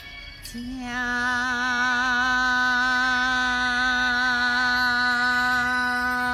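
A woman's singing voice holding one long note with a slight vibrato, starting about half a second in, at the close of the song.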